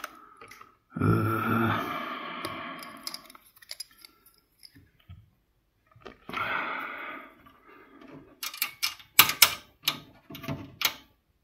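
Small metal screwdriver bits rattling and clicking as they are sorted through and one is swapped into a magnetic screwdriver, with a quick run of sharp clicks near the end.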